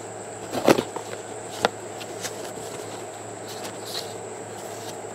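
Cardboard shipping box being handled and opened: two sharp knocks about a second apart near the start, then faint scattered ticks and rustles. A steady high insect buzz runs underneath.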